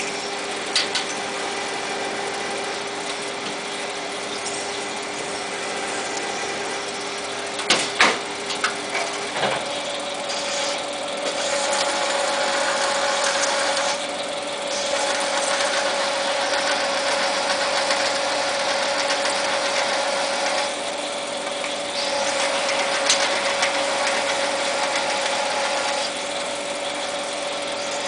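Jet TL-25 turret lathe running on 12L14 steel: a steady machine hum, a few sharp metallic clunks about eight seconds in as the turret is indexed, then the hum steps up in pitch and cutting noise comes and goes in several stretches of a few seconds each.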